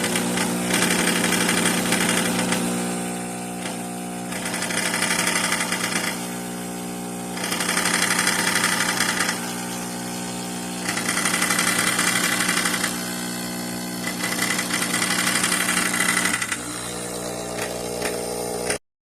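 De'Longhi ECP3120 espresso machine running: its pump hums steadily while a loud hiss swells and fades about every two to three seconds. It cuts off abruptly near the end.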